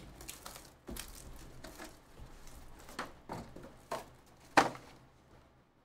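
Hands opening a cardboard trading-card hobby box: a run of short rustles, crinkles and tears from the cardboard and wrapper as the packs are pulled out and stacked, with one sharper crack about four and a half seconds in.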